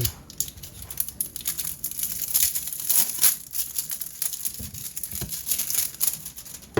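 Packaging being cut open with a pocketknife: irregular crinkling and tearing throughout, with a sharp click near the end.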